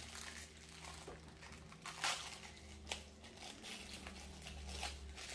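Plastic packaging crinkling and rustling as small fidget toys are handled, with a few brief sharper rustles about two and three seconds in, over a steady low hum.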